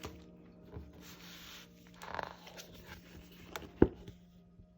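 Quiet handling of paper sticker sheets and cardstock: a few soft rustles, then one sharp tap or click a little before the end.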